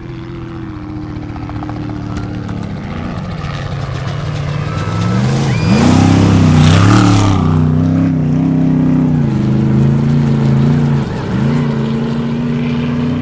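Off-road race truck's engine at full throttle, growing louder as it approaches and passing close by about six seconds in with a rush of dirt and wind noise. Its engine note then carries on as it pulls away, dipping briefly twice.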